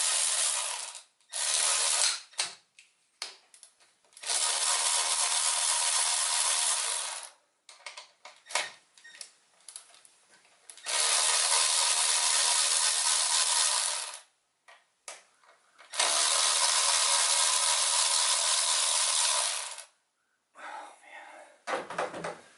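Cordless power ratchet spinning fasteners out on a truck engine, running in several runs of two to four seconds with short blips between.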